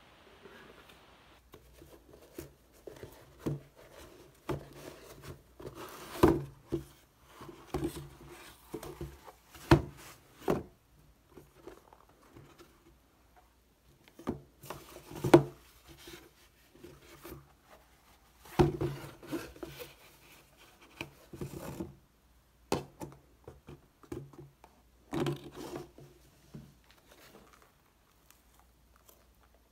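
Unboxing handling noise: a cardboard shoebox and tissue paper rustling and scraping, with scattered sharp taps and knocks as the box and leather loafers are set down on a wooden desk.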